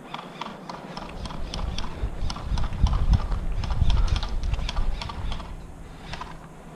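Airsoft gun firing a steady string of single shots, about three to four sharp snaps a second, stopping about six seconds in.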